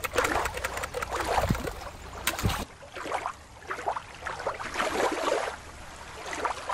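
Shallow water lapping and trickling over rocks at the shore, with a low rumble under it; about two and a half seconds in it cuts abruptly to a different hiss of water that swells and fades unevenly.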